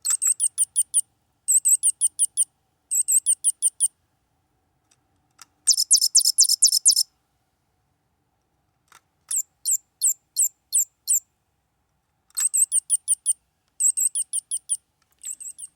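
McDonald's 2001 Robo-Chi Chirpy-Chi toy bird's electronic sound chip chirping, set off by the magnet in its food accessory. Several runs of rapid high-pitched chirps with short silences between them, in a few different chirp patterns.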